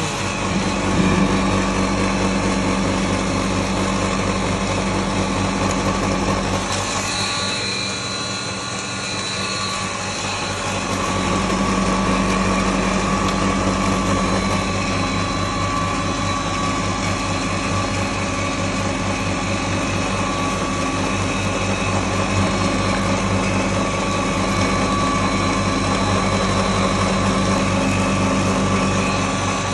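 Double-chamber maize grinding mill running steadily, grinding corn kernels fed down from its hopper, with a constant mechanical hum. The low part of the hum drops away for a few seconds about seven seconds in, then comes back.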